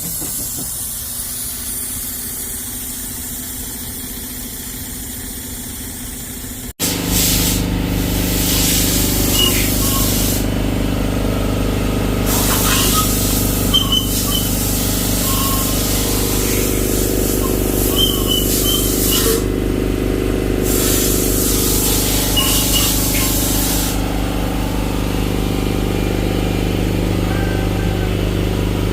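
Cummins ISX15 diesel engine running with a steady low drone, with its turbo stuck closed and choking the exhaust flow, as the owner diagnoses it. After a brief break about seven seconds in, it runs louder, with several stretches of loud hissing that come and go.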